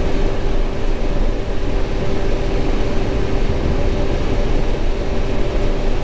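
Combine harvester running steadily while harvesting corn: constant machinery noise with a steady, unchanging hum.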